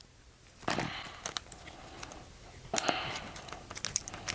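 Plastic wrapping and packaging being handled: two short rustles, one under a second in and one near three seconds, with scattered small clicks and taps.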